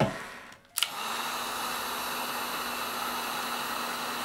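Hot-air tool switched on about a second in and running steadily: an even blowing hiss with a faint low hum, heating a sensor part inside a phone so it can be freed.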